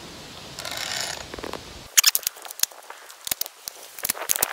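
Sharp clicks and clacks of a Tokarev TBP 12-gauge bullpup shotgun being handled to clear a feed malfunction, with a brief rustle about a second in and a quick run of clicks from about two seconds in. The owner takes the jam for a cheap buckshot shell that popped out of place while loading.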